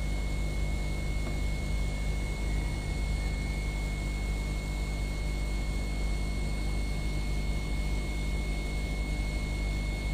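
Steady machine hum with a constant thin high whine above it, unchanging throughout.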